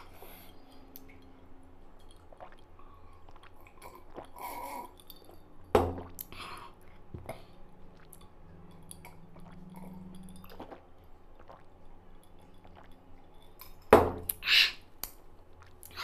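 A man sips and swallows juice from a glass to ease a chilli-burnt mouth. Two sharp knocks come about six seconds in and again near the end, and a short hissing breath follows the second.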